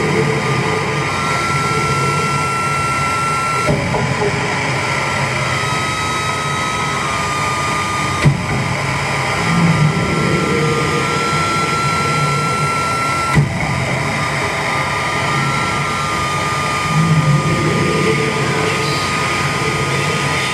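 Live harsh-noise electronics from a drum machine and effects pedal rig: a dense, steady wall of noise with a high held tone that steps to a new pitch several times, low rumbling swells twice, and two sharp clicks where the sound abruptly shifts.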